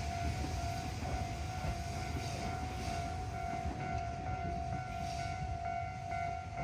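Train pulling away from a station platform: a low rumble of running gear fading off, with a steady high-pitched tone running underneath.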